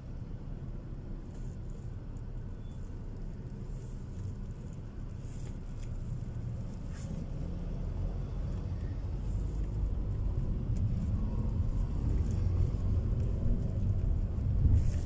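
Low, steady rumble of vehicle engines and road noise moving through city traffic. It grows louder over the last few seconds.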